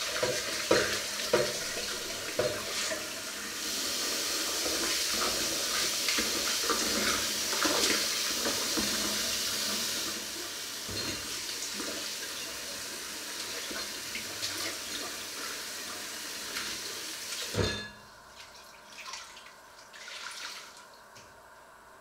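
Kitchen tap running into a stainless steel sink during hand dishwashing, with clinks of pots and dishes, most of them in the first few seconds. The water stops with a knock about 18 seconds in, and a few soft handling sounds follow.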